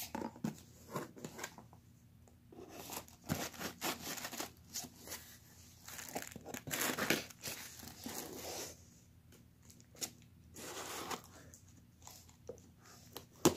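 Scissors cutting into a shipping box to open it, with tearing and crinkling as the packaging is worked open, in irregular bursts with a few sharp clicks.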